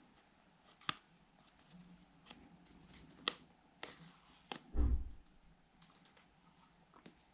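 Handling of an iPhone 13 box and its packaging while it is unboxed: a few sharp clicks and taps, then a louder dull thump about five seconds in.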